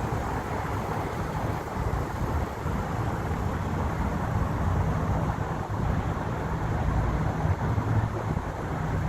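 A 2012 Mercedes-Benz C300's engine running with a steady, rough hum and no clear whistle or squeal standing out.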